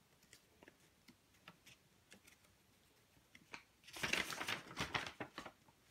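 Hands handling card boxes and packaging: scattered faint clicks and taps, then a denser flurry of clicks and rustling about four seconds in.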